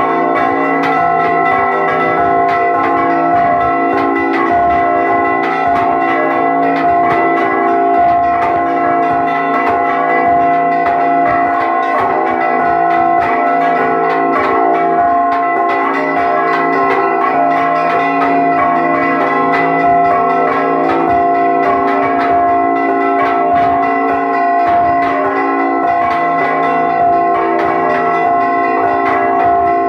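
Several church bells rung in a rapid repique, their clappers pulled by ropes so that strikes come thick and fast without a break. The bells' ringing tones hang on and overlap under the strikes.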